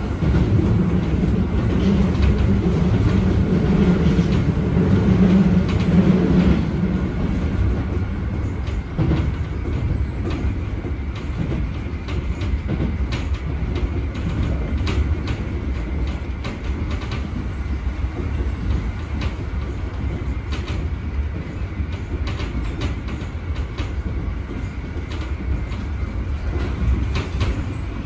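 Keio 7000 series electric train running along the line: a steady rumble of wheels on rail with scattered clicks over the rail joints. A low hum stands out for the first six seconds or so, then fades.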